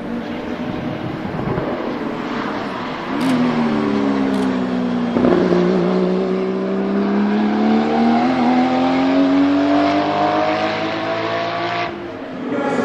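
Porsche 935 Kremer race car's turbocharged flat-six running hard: its engine note sags over a couple of seconds, then climbs steadily again as it accelerates. There are two sharp cracks about three and four seconds in, and the sound breaks off abruptly near the end.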